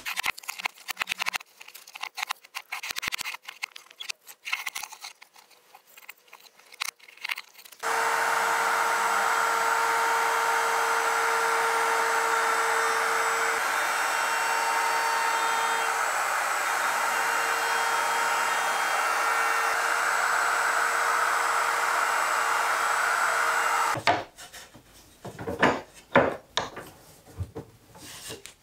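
Porter-Cable router running steadily with a constant whine for about sixteen seconds, cutting a roundover on the edges of pine boards, starting and stopping abruptly. Before and after it come short scattered scraping and knocking sounds of pine pieces being handled and rubbed on a wooden workbench.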